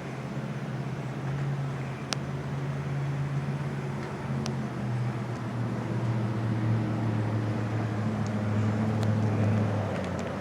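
Steady low engine drone whose pitch drifts slightly, dropping away near the end, with a couple of faint clicks.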